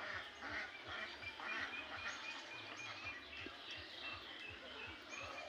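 Ducks quacking repeatedly, with a quick run of short high-pitched notes about two seconds in.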